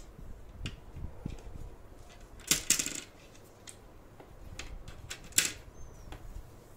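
Plastic letter tiles of an Ekta Word Building game clicking and clattering as they are handled and dropped into the slots of the plastic upright frame, with two louder rattling drops, about two and a half seconds in and again about five and a half seconds in, and lighter clicks between.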